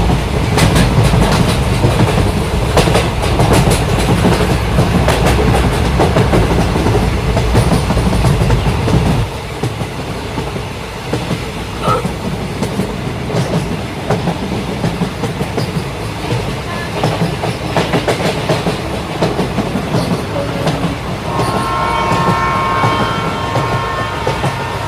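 Toy trains running on a plastic track layout, their wheels clattering over the rail joints with a motor whir. The heavy rumble drops away about nine seconds in, and near the end a steady pitched tone comes in.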